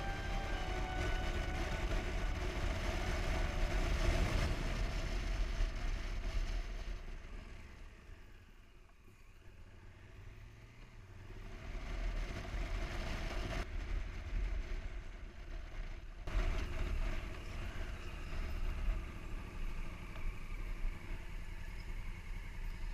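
Motorcycle riding on the road: engine running with wind rush on the bike-mounted camera's microphone. It eases off and goes quieter for a few seconds around the middle, then picks up again.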